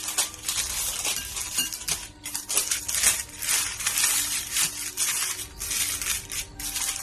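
Crinkly wrapping being scrunched and pressed around a bowl of shaped sourdough, an irregular run of crackles with no pause.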